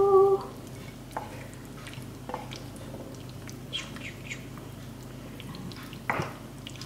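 Tomato-sauced fusilli sliding off a pan onto a plate, with soft wet squelches and scattered small clicks of the utensil against the pan, and a louder clack near the end.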